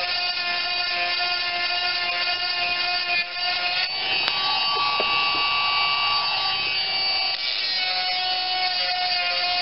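A 12-volt electric chainsaw sharpener running with a steady whine, its grinding stone filing the chain's teeth; about four seconds in, the sound changes for roughly three seconds to a rougher grinding as the stone is held against a tooth, then returns to the steady whine.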